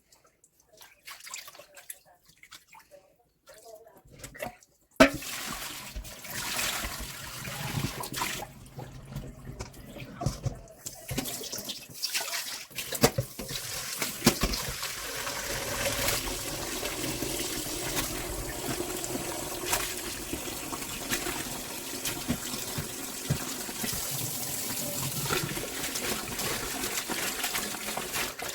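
Tap water running and splashing in a sink as napa cabbage is washed, starting about five seconds in after a few small handling sounds.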